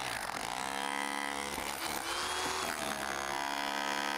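Rotary hammer chipping concrete off a footing, running steadily. Its pitch dips shortly after the start, then holds.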